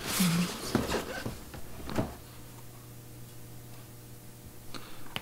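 Cardboard laptop box being opened by hand: the lid rustles and scrapes with a few light knocks for about two seconds, then handling stops and only a faint steady low hum remains.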